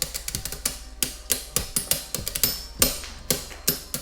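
Two Beyblade Burst spinning tops, Zest Achilles and Astral Spriggan, clashing in a plastic stadium: an irregular, rapid run of sharp clacks, some ringing briefly, as the attack-type top keeps striking.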